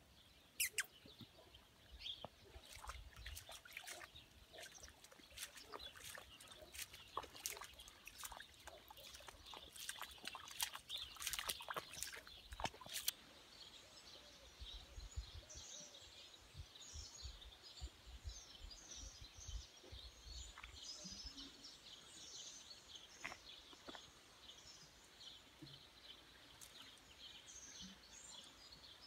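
Faint, irregular splashes and knocks of footsteps wading through shallow water for the first half, then small birds chirping high and often through the second half.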